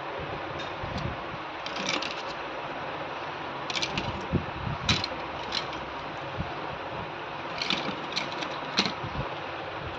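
Scattered small clicks and taps from hand tools and phone parts being handled during a smartphone repair, coming in short clusters over a steady hiss.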